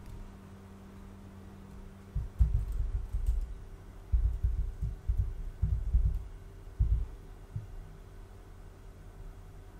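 Steady electrical hum with a cluster of irregular, deep, muffled thumps from about two seconds in to past seven seconds.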